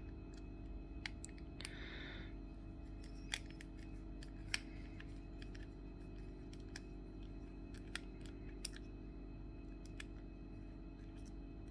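Faint, scattered small clicks as a precision star-bit screwdriver works tiny screws out of a camera circuit board, over a steady low hum.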